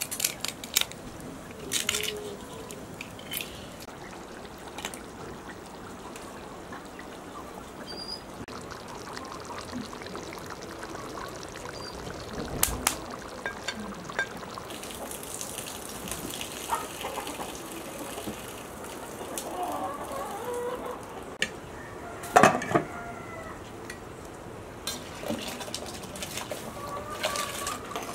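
Water poured from a jug in a thin stream, among a few sharp clinks of metal pots and lids. Hens cluck near the start.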